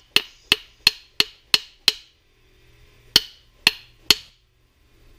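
A rapid series of sharp, ringing taps, about three a second: six, a short pause, then three more. They come from tapping on the metal parts of a Zabala double-barrel 12 gauge shotgun during disassembly.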